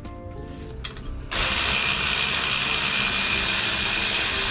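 A power tool runs steadily with a loud hissing whir, starting suddenly about a second in and holding without a break.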